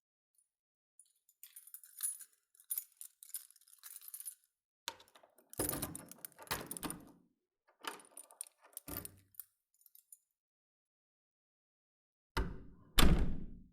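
Keys jangling, then clicks and rattles of a door's lock and handle being worked, and near the end two heavy thuds of the door shutting.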